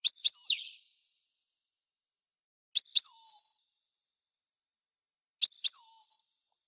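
European goldfinch singing in three short phrases about two and a half seconds apart, each a couple of sharp, high chips running into a clear, drawn-out whistled note.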